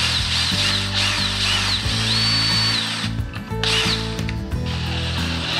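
Cordless drill boring out the points cover on a 2002 Harley-Davidson Sportster 1200 engine. The drill runs in short pulls of the trigger, its motor whine sweeping up and down in pitch, holding steady for under a second about two seconds in. Background music plays underneath.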